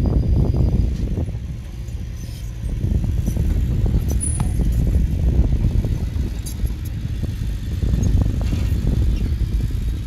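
Diesel engine of heavy earthmoving machinery running with a low rumble. It eases off briefly about two seconds in, then picks up again.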